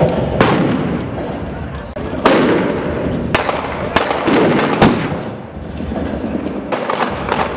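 Rifles firing blank rounds in a staged battle: sharp single shots with echoing tails, irregularly about a second apart, then a quicker run of shots near the end.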